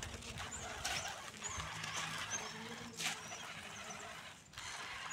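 Small electric RC rock crawler driving slowly over gravel while towing a loaded trailer: tyres crunching on loose stones, with a low motor and gearbox hum. There is a sharp click about three seconds in, and faint high chirps above it.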